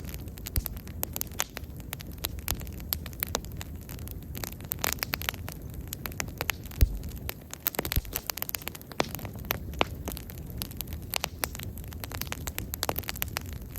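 Bonfire burning with a low rumble and many irregular sharp crackles and pops from the burning wood, one louder pop about seven seconds in.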